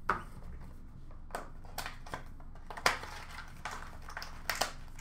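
Handling noise of trading cards and plastic card holders: a string of short crinkles and clicks, about half a dozen spread through.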